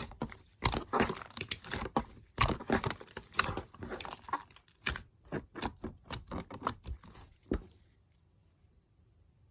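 Crunchy, crackling squishes of modelling clay being mixed and kneaded by hand, an irregular run of small pops and crackles that stops about seven and a half seconds in.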